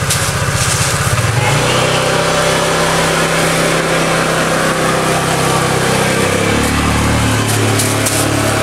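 An engine running, with a pulsing chug that smooths into a steadier low tone about a second and a half in.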